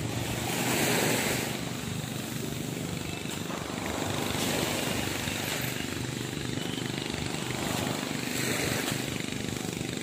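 Steady low engine rumble under a hiss that swells and fades a few times.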